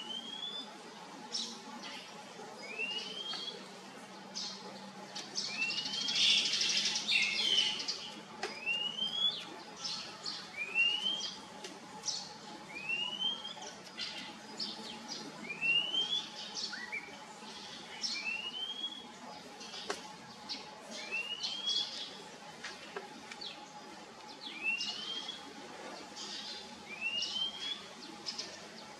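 Oriental magpie-robin calling: a single rising whistled note repeated about every two seconds, with other short chirps in between and a brief louder flurry about six seconds in.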